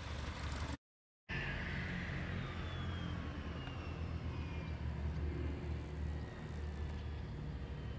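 A Cessna 150F's four-cylinder Continental O-200 engine running, heard as a steady low drone, cut by a brief dropout about a second in. A few faint high tones slide down in pitch over the following seconds.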